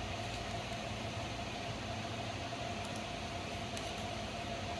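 Steady appliance hum and hiss: an even hiss with a low hum and a constant mid-pitched tone, unchanging throughout, with a few faint ticks.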